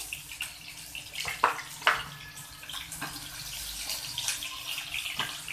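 Paneer cubes shallow-frying in hot oil in a nonstick pan: a steady sizzle with crackles, and a few sharp clicks as a steel spatula turns them against the pan.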